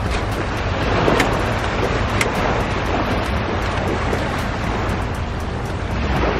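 Wind buffeting the microphone over small surf washing onto a sandy beach: a steady rushing noise with a heavy low rumble, with a couple of faint ticks about one and two seconds in.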